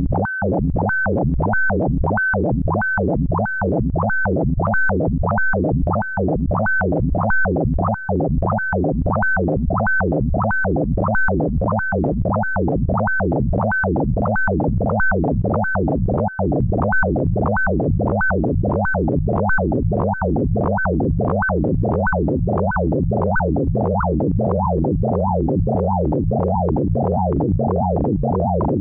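Pure Data sonification of a photograph's pixel colours: synthesized electronic tones pulsing about one and a half times a second over a low steady hum, with a short high blip on each beat. The high blips drop out about 23 seconds in, and the pulses become fuller and denser.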